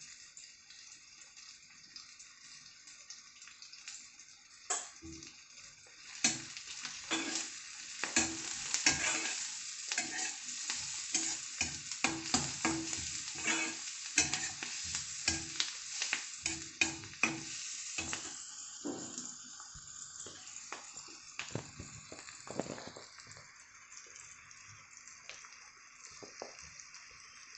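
Chopped onions sizzling in oil in an iron kadhai, with a steel spatula scraping and clinking against the pan as they are stirred. The stirring strokes come thick and fast in the middle and thin out toward the end, over a steady hiss of frying.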